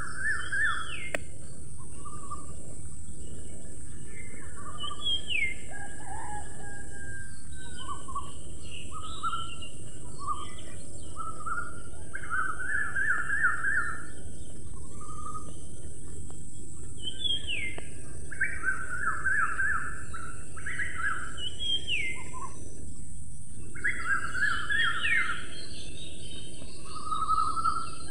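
Birds singing, with short trilled phrases and swooping whistled notes every few seconds over a steady background hiss, like an outdoor nature ambience.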